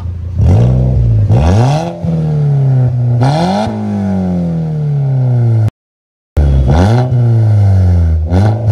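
Car engine revved in about five quick blips through an aftermarket Remus valvetronic exhaust with its valve open, each rev rising sharply and settling back slowly. The sound cuts out abruptly for a moment midway and again at the end.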